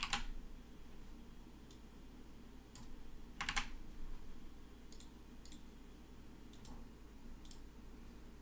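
Scattered computer keystrokes and clicks, single taps and quick pairs with pauses between.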